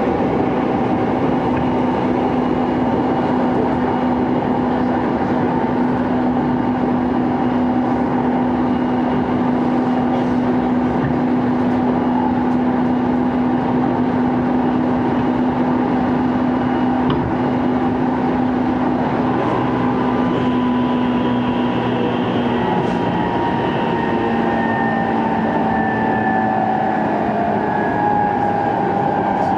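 JR East E233-2000 series electric train heard from inside a motor car, with unusually loud traction motor noise from its Mitsubishi IGBT VVVF drive. It runs at steady speed with a steady motor hum over the rail and running noise, then from about two-thirds of the way through a falling whine as the train slows.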